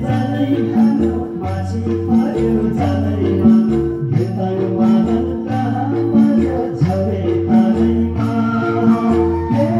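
Nepali dance music playing loudly, with held melody notes over a bass line and a steady percussion beat.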